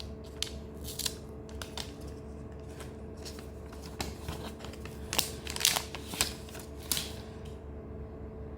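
A run of short, crisp snips and clicks, irregular and thickest about five to seven seconds in, like small objects being handled and cut. A steady low electrical hum sits underneath.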